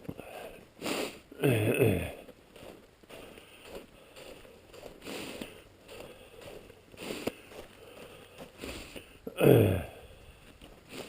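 Footsteps crunching on icy snow, with two short vocal sounds that drop steeply in pitch, one about a second in and one near the end.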